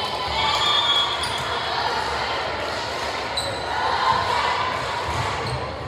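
Voices of players and spectators echoing in a gymnasium during a volleyball match, with dull thuds of the ball.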